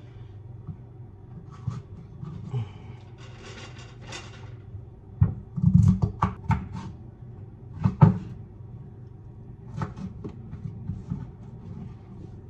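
Kitchen clatter while cooking: irregular knocks and bumps of things being handled, with a cluster of louder thuds about five to six seconds in and another about eight seconds in.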